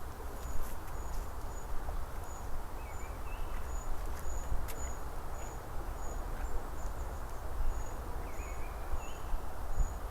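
Forest ambience: a thin, high chirp repeating about twice a second, with a few short bird calls, over a steady hiss and a low rumble.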